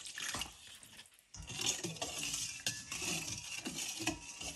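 Water pouring into a stainless steel bowl stops within the first second. After a short near-silent gap, a metal spoon stirs the water and oil in the bowl, scraping and clinking against the steel.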